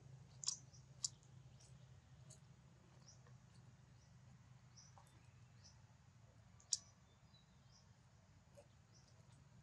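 Near silence: faint woodland ambience with scattered short high chirps. Two sharp clicks about half a second apart near the start and one more about seven seconds in.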